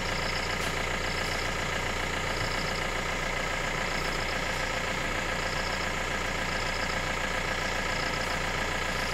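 A vehicle engine idling steadily. A short, pulsed, high chirping repeats about once a second over it.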